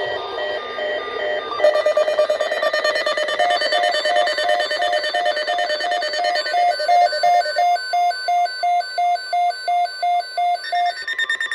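Emergency Alert System alert tones on a weather radio broadcast: a loud electronic alarm beeping about two to three times a second over several steady tones. About 1.5 s in the sound thickens, and from about 3.5 s the beeps pulse evenly, signalling that a flood watch is about to be read.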